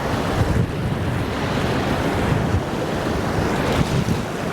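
Steady rush of running water, with wind buffeting the microphone.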